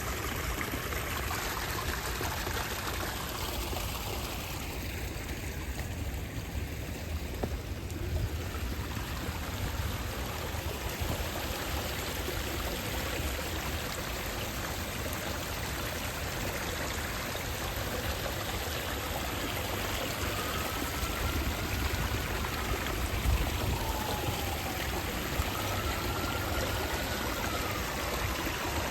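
Water running steadily in a stream, an even rushing sound. A bird whistles a few faint slurred notes, rising and falling, near the end.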